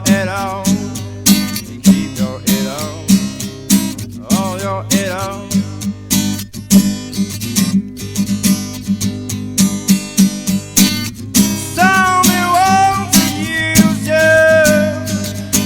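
Acoustic guitar played live, strummed with sharp percussive strokes in a steady rhythm; in the last few seconds a melody of held, wavering notes rises over it.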